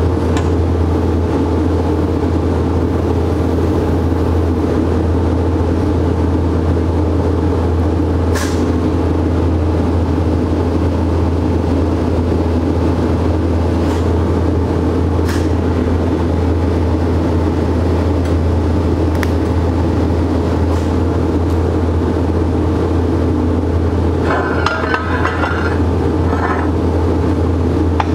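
Steady low electrical hum of a TIG welder while steel straps are welded onto a bracket, with a few sharp clicks scattered through it.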